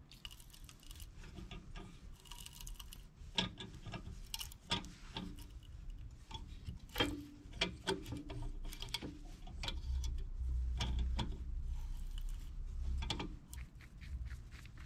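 Hand tap in a tap wrench cutting M12 x 1.25 threads into an aluminium adapter held in a bench vise: irregular metal clicks, ticks and scrapes as the wrench is worked round.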